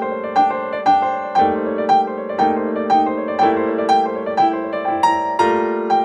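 Instrumental background music: a gentle, even run of notes about two a second over held chords.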